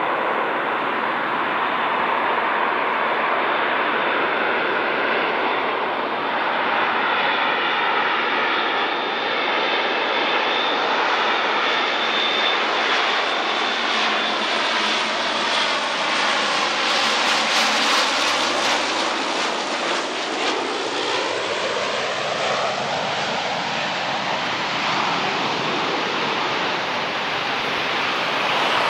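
Four Allison T56 turboprop engines of a C-130 Hercules on landing approach: a steady propeller drone that swells as the aircraft passes overhead about two-thirds of the way in, then falls in pitch as it moves away.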